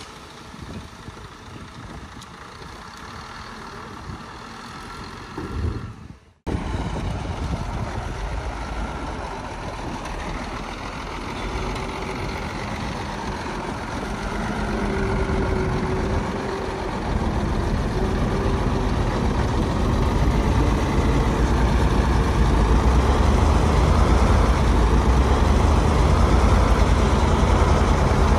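Heavy diesel earthmoving machinery running. About six seconds in the sound cuts off abruptly and returns louder, then builds steadily, with a deep rumble that grows toward the end.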